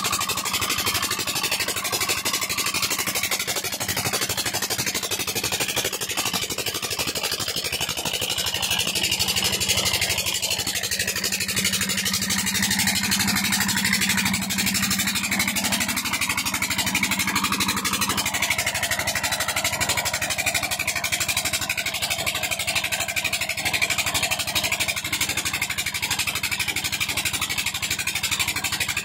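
Single-cylinder Petter-type ('Peter') diesel engine running steadily while driving a tubewell water pump, with water gushing from the outlet pipe into a concrete tank.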